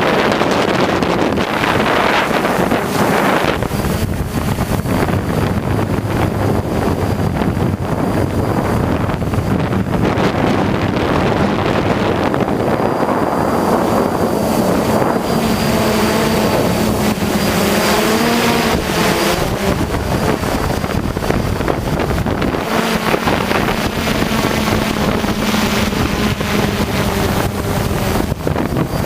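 Wind buffeting the microphone over the steady hum and high whine of a hexacopter's motors and propellers. The pitch wavers for a few seconds about two-thirds of the way through.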